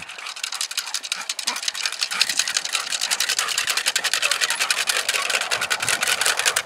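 A rapid, steady dry clicking rattle, many ticks a second, with most of its energy high up and almost nothing deep.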